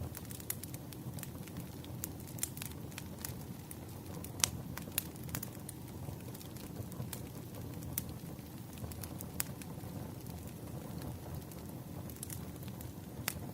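Wood fire crackling: a steady low rumble of burning logs with scattered sharp pops and snaps, the loudest pops about four and a half and five seconds in.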